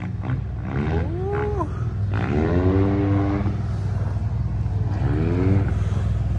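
Motorbike engine revving three times, each rev a rising whine that climbs and then drops away, over a steady low engine rumble.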